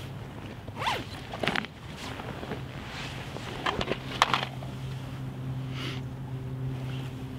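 Fabric rustling as a fleece jacket is pulled out and handled: a few short swishes and scrapes, over a steady low hum.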